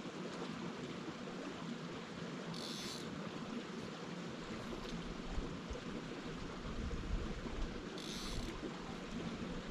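Steady rush of a small mountain creek's running water. Two brief high hisses come about two and a half and eight seconds in, and a low rumble runs through the middle.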